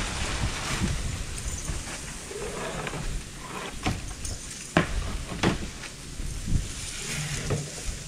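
Wooden boards knocking and clattering as lumber is handled: a handful of sharp knocks in the second half, the loudest about halfway through, over low wind rumble on the microphone at the start.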